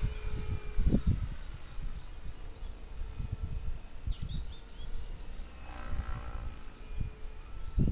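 Wind buffeting the microphone in irregular low gusts, over the faint steady whine of a distant radio-controlled model helicopter that fades out in the first couple of seconds and comes back faintly near the end. Short high bird chirps come through twice.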